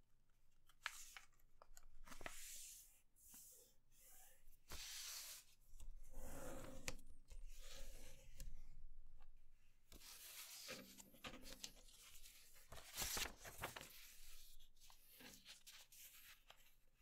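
Sheet of grid paper rustling and crackling as it is folded by hand and its creases pressed flat, in short irregular bursts with pauses between.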